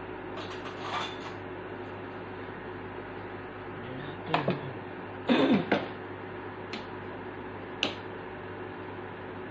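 Steady hum of a portable induction cooktop's fan running under a pan of hot oil, with a few short knocks and clinks of kitchenware being handled, the loudest cluster about five and a half seconds in.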